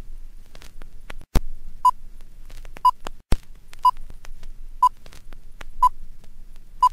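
Film-leader countdown sound effect: a short beep once a second, six times, over the clicks and crackle of old film, with two loud pops in the first half.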